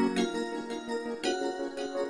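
Background music: sustained chords with a chord change about a second in.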